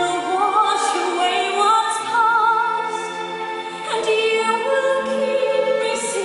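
A voice singing a slow musical-theatre ballad with vibrato over sustained orchestral accompaniment.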